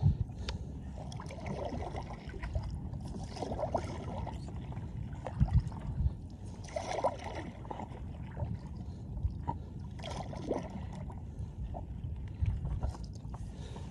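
Stand-up paddleboard paddle strokes: the blade dipping and pulling through calm water every second or two, with splashes and drips, over a low steady rumble.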